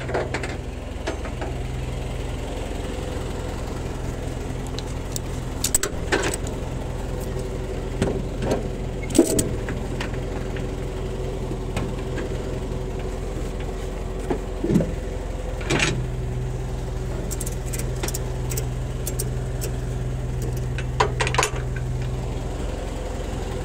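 A flatbed tow truck's engine idling steadily, with the metallic clanks and rattles of tie-down chain hooks and straps being handled on the flatbed deck. The clanks come at irregular moments, several of them sharp.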